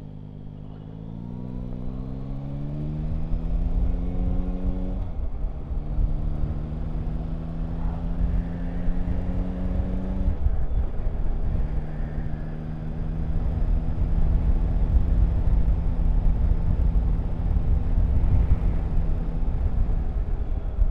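Yamaha Tracer 9 GT's three-cylinder engine accelerating hard out of a hairpin. Its pitch rises, drops sharply at an upshift about five seconds in, rises again to a second upshift about ten seconds in, then holds steady at speed. Heavy wind rumble on the microphone grows louder as the speed builds.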